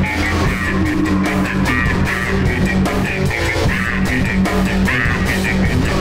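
Background rock music led by guitar, an instrumental stretch of a homemade rock song with no singing.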